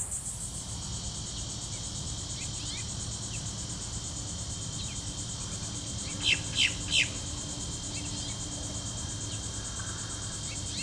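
A steady, high-pitched chorus of insects trilling, with a bird giving three sharp chirps about six seconds in and a few fainter chirps scattered around them.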